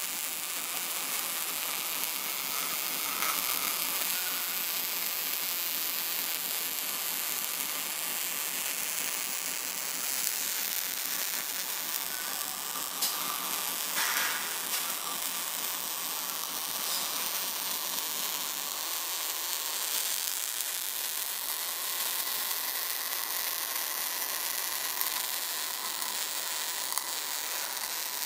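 MIG/MAG welding arc burning on steel pipe: a continuous, even noise with no breaks.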